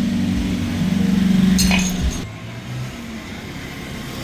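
Motorcycle engine running with a steady hum, with a single metallic clink about a second and a half in. The engine sound drops away about two seconds in.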